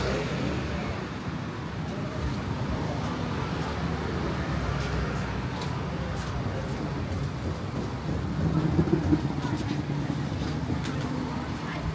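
Street traffic: vehicle engines running past in a steady rumble, with one vehicle louder about eight to nine seconds in.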